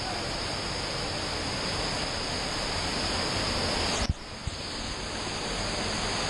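Waterfall pouring over a rock face into a pool: a steady rushing of falling water. About four seconds in it breaks off for a moment with a click, then goes on a little quieter.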